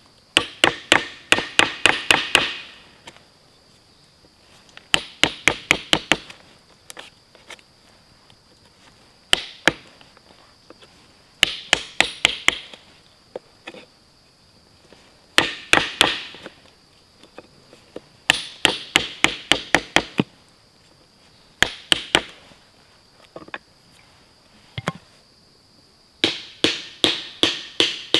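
A chisel being struck in quick runs of sharp knocks, chopping a slot into a fresh-cut wooden piece of a frame saw. About eight short runs of two to eight blows each come every few seconds, over a steady high insect buzz.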